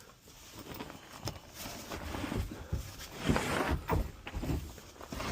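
Irregular knocks, clicks and rustling from hands and tools working on a furnace, with a few louder thuds in the middle.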